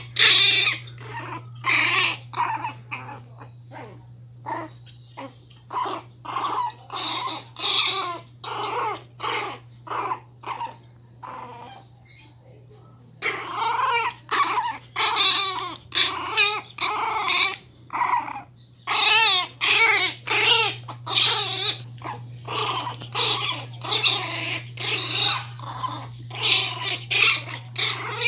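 Miniature pinscher puppies growling in play as they tug at a cloth toy: a fast, unbroken string of short growls, with a brief lull about twelve seconds in.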